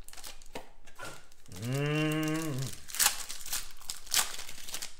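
Foil trading-card packs crinkling as they are handled and torn open, with two sharp louder crackles a little after the middle. A person hums a steady "mmm" for about a second near the middle.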